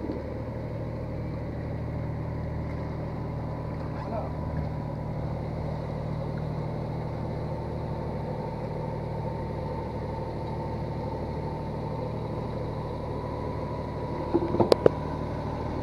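Fishing boat's engine running with a steady, even hum and a faint constant whine above it. A few sharp knocks come near the end.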